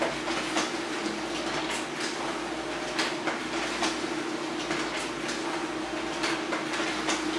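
HP LaserJet Pro M402d laser printer running a two-sided print job: a steady motor hum with irregular clicks and clacks of the paper-feed mechanism.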